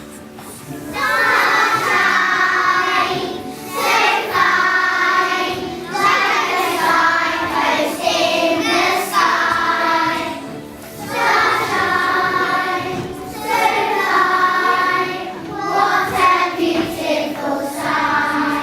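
Music with a group of voices singing in sustained phrases of about two seconds each, with brief breaks between phrases.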